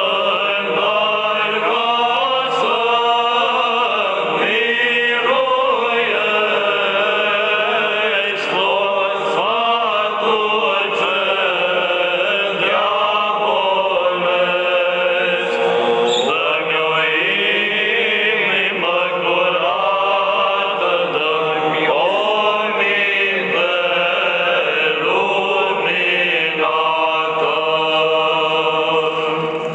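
Romanian Orthodox hymn to the Holy Cross, sung in chant style. The voices carry a flowing melody over a steady held low note.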